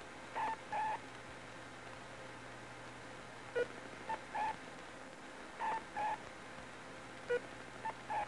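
Short electronic beeps, mostly in pairs about a third of a second apart, with a single lower blip between some pairs, over a faint steady hum. They come as points are picked out one by one with a light pen on the computer's display tube.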